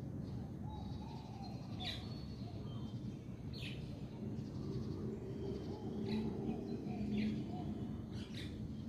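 Small birds chirping in the background: short, high chirps every second or two over a low, steady background hum.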